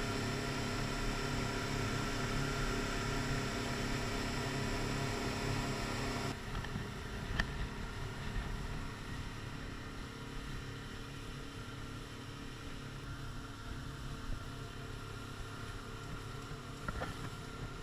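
Boat's two engines running steadily underway, a low hum with a steady drone. About six seconds in the sound drops suddenly and then carries on more quietly.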